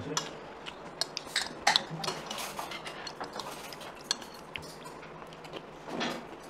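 Cutlery clinking and scraping against bowls and dishes at a meal table, in irregular small clicks that are thickest and loudest a second or two in.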